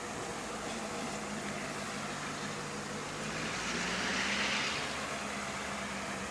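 EMD diesel locomotive engine idling with a steady low hum, while a broad hiss swells and fades about four seconds in.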